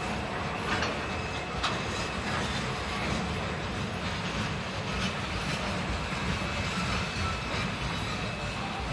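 Container freight train's flat wagons rolling past: a steady rumble of steel wheels on rail, with two short sharp clanks in the first two seconds.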